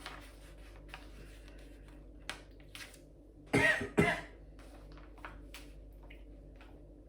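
A man coughs twice in quick succession about halfway through. Faint scattered clicks of plastic Lego pieces being handled come before and after.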